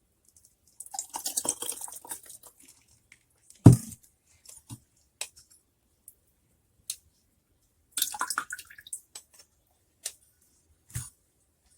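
Coconut milk being strained through a sieve: liquid splashing and dripping into a bowl with the squelch of wet grated coconut, in two spells. A loud knock about four seconds in, and a few small clicks.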